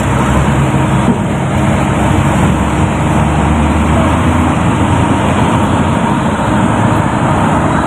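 Steady engine hum and road rumble of a moving passenger vehicle, heard from inside its cabin.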